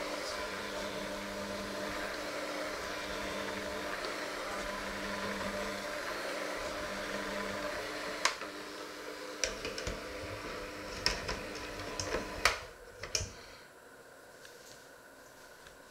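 Electric hand mixer with dough hooks running steadily through a dry mixture in a stainless steel bowl. From about eight seconds in, the hooks knock against the bowl several times. The motor stops shortly before the end.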